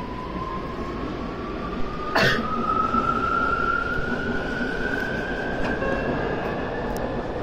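Electric train pulling away: the inverter and traction motors whine in one tone that rises steadily in pitch as it accelerates, over a low rolling rumble. A single sharp clunk about two seconds in.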